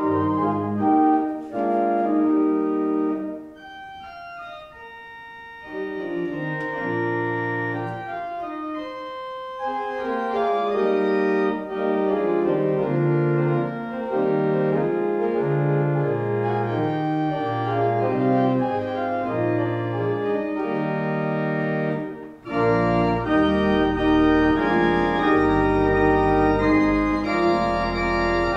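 Organ playing slow sustained chords. A few seconds in it drops to a softer, thinner passage, then builds again; near the end it comes in fuller, with deep bass notes.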